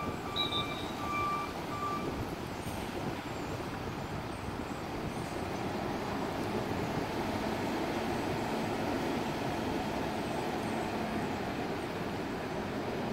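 A box truck's backup alarm beeping in even pulses, stopping about two seconds in. The truck's engine keeps running steadily as it pulls forward across the lot.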